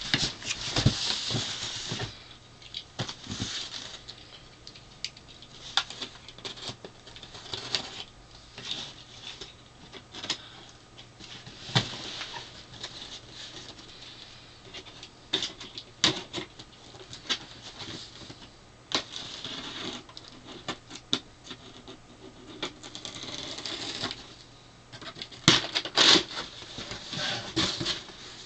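Cardboard shipping box being handled and opened by hand: the packing-tape seam is slit and the flaps are pulled open, with many scattered knocks, taps and scrapes on the cardboard and spells of scratchy rustling.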